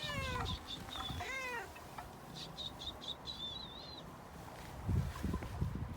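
Domestic cat meowing twice: a falling meow right at the start and a short rising-and-falling meow about a second and a half in. A low bump follows about five seconds in.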